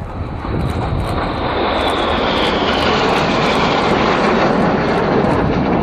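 Two BAE Hawk T1 jets of the synchro pair flying past, their jet noise building about half a second in and holding loud, with a high whine gliding downward as they pass.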